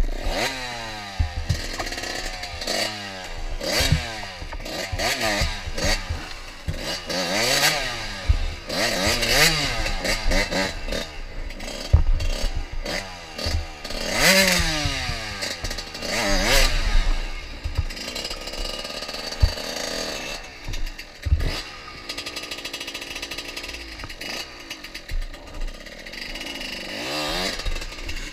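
Dirt bike engine revving up and down in repeated short bursts under load on a steep, rutted uphill trail, with the odd knock from the bike over roots and rocks.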